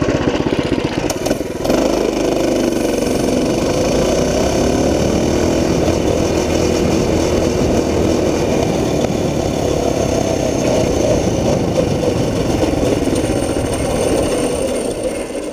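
Stock Tillotson 212 Hemi single-cylinder four-stroke engine on a Coleman CT200U-EX minibike, opened to full throttle from a standstill about two seconds in. It revs up quickly, runs steadily at high revs, and eases off near the end.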